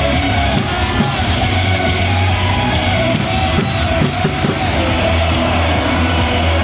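Loud cheer song with a steady bass beat, with voices singing and yelling along.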